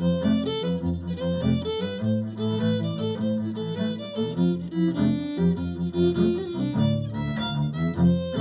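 Fiddle playing a jig melody in quick, changing notes, with lower notes sounding underneath it at the same time.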